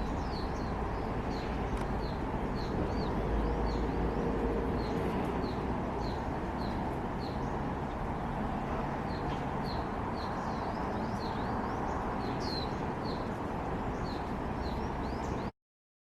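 A small bird giving a series of short, high, hooked chirps, two or three a second with a brief lull midway, over a steady low background rumble. The sound cuts off abruptly near the end.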